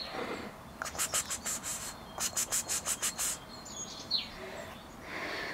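Kittens with their mother cat in a box: two runs of quick, rhythmic wet rasping strokes, about six a second, and a short high kitten mew falling in pitch about four seconds in.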